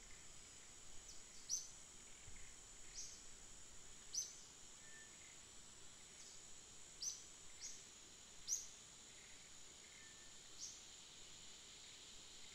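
Faint outdoor ambience: a steady high-pitched insect drone, with several short, sharp bird chirps scattered through it every second or two.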